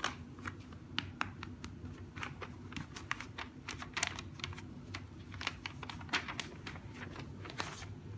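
Irregular light clicking and tapping, a few clicks a second with uneven gaps: kittens' claws and paws on a hard surface as they play.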